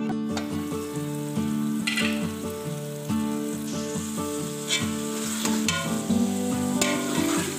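Chicken and kachnar buds sizzling in a cooking pot while a metal slotted spoon stirs them, with scraping strokes every second or so. The sizzle grows stronger about halfway through.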